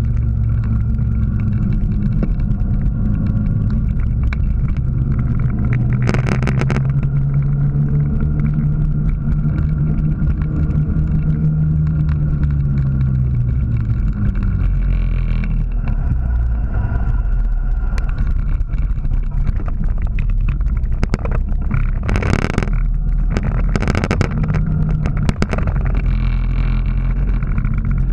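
Vehicle engine running steadily on a downhill road. Its pitch rises and then falls away around the middle. There are rushes of wind on the microphone about six seconds in and again later on.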